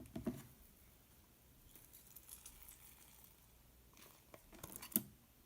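Marbled slime being handled by hand: soft sticky crackles and small pops, a cluster at the start and a louder cluster about four and a half to five seconds in.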